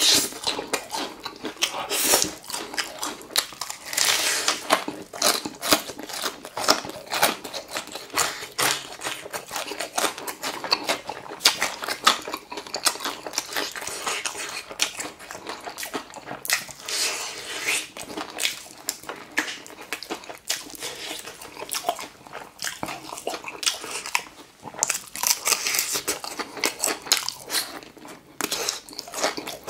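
Crispy breaded fried chicken being bitten and chewed: crunching of the crust mixed with wet chewing, as dense irregular crackles that keep going.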